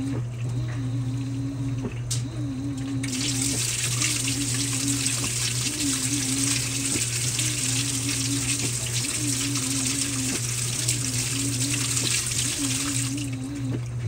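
Brastemp Vantage top-load washing machine agitating a load, its motor humming with a wavering whine in strokes about a second long. About three seconds in, water starts spraying into the drum with a steady hiss, which cuts off near the end.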